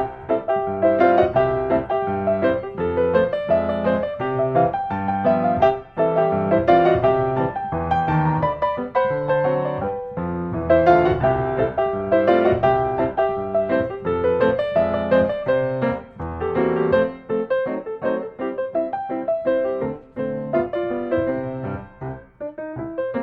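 Background piano music: a steady run of quick notes over a lower bass line.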